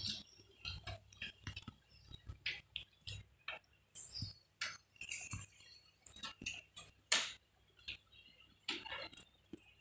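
Irregular light clicks and taps, several a second, unevenly spaced.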